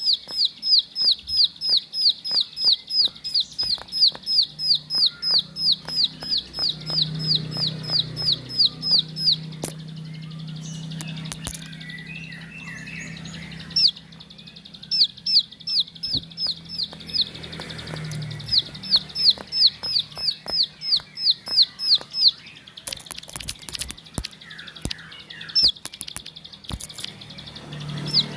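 Ciblek sawah (a prinia) singing in long runs of sharp, high, downward-sweeping notes, about three a second, broken by a few short pauses.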